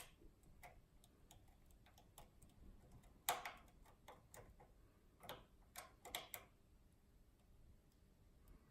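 Faint, irregular clicks and ticks of a lock pick working the spring-loaded pins of a Schlage cylinder, with a louder click a little past three seconds in and a cluster of clicks around six seconds, as the pins are set toward opening the lock.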